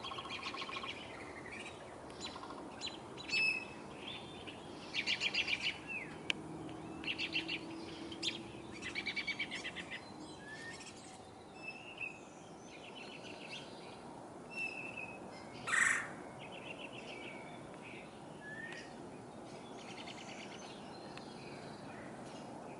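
Woodpeckers calling: several short, rapid rattling calls and single sharp call notes, with the loudest sharp call about two thirds of the way through.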